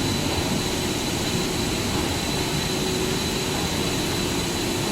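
Steady machinery noise of a running cable insulation extrusion line, an even hum and hiss with a thin, steady high-pitched whine.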